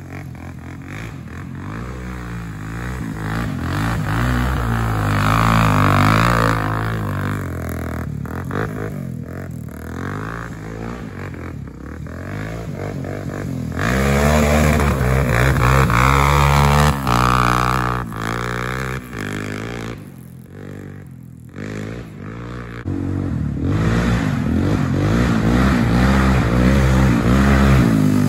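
Single-cylinder off-road engine revving up and easing off again and again while riding. The pitch rises and falls, with louder stretches from about halfway through and a brief lull a little before that.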